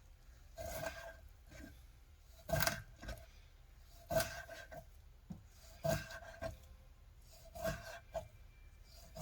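Knife slicing a sea bass fillet into sashimi on a cutting board: five strokes at an even pace, about one every second and three quarters, each ending in a short knock of the blade on the board.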